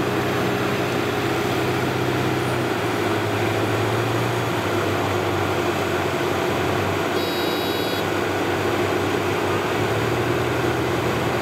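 Rice combine harvester's diesel engine running steadily at close range, its pitch stepping down slightly a few seconds in. A brief high tone sounds about seven seconds in.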